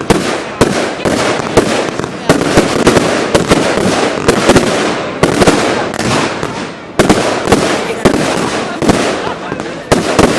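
Fireworks and firecrackers going off thick and fast: a steady din of crackling with many sharp bangs, several a second.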